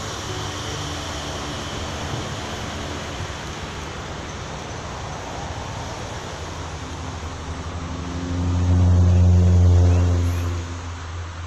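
Steady road traffic noise, with one motor vehicle's engine drawing near, growing loud and passing by about eight to ten seconds in, then fading.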